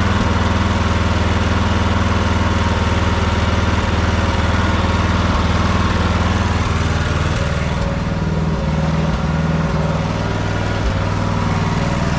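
Troy-Bilt Bronco riding tractor's small engine running steadily on old gasoline, back in running order after repair. About seven seconds in its note changes and it gets a little quieter.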